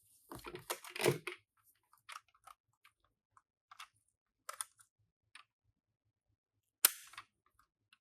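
Light, scattered clicks and clacks of small die-cast toy cars being handled, a quick cluster at first, then a few isolated ticks and one sharper click near the end.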